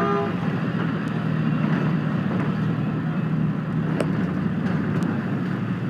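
Steady road vehicle noise, a car's engine and tyres running with a low, even hum, with a couple of faint clicks about four and five seconds in.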